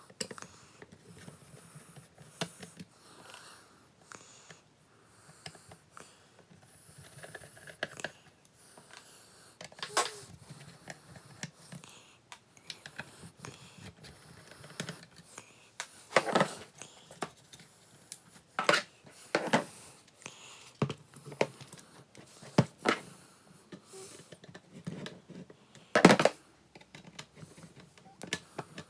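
Irregular small clicks, taps and knocks of hands and tools working apart the brittle plastic housing of a Nissan R34 GT-R's multi-function display unit, with the sharpest click near the end.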